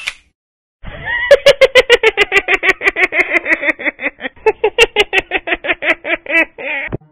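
A long run of rapid laughing, a quick even string of short 'ha' pulses about six a second, starting about a second in and stopping just before the end; used as a meme sound effect.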